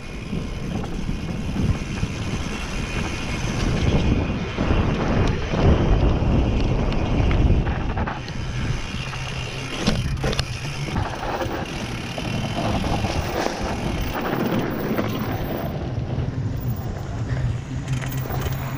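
Mountain bike riding a dirt single track: a steady wind rush on the microphone, with the bike's rattles and scattered knocks over the rough ground.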